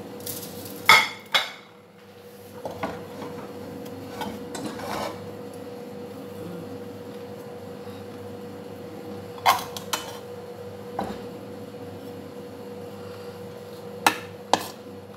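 A perforated metal skimmer clinking and scraping against a stainless steel pot as rice is scooped and turned. There are a few sharp clinks about a second in, a couple more around the middle and two near the end, with softer scraping and rustling of rice between them.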